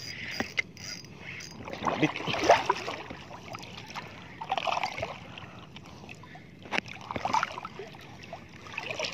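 Small waves lapping and sloshing at the edge of a rocky shore in irregular swells, with a few sharp knocks from handling the fishing rod and reel.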